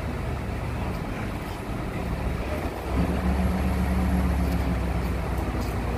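Truck-mounted crane's engine running, then revving up about halfway through and holding a higher steady pitch as the crane hoists a slung load of steel frames.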